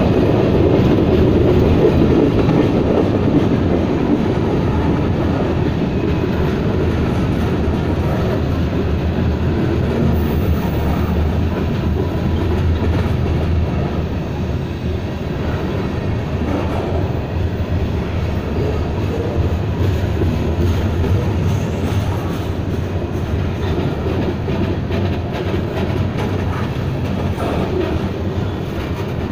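Freight train cars rolling past at close range: a steady, loud rumble of steel wheels on the rails that eases off a little about halfway through.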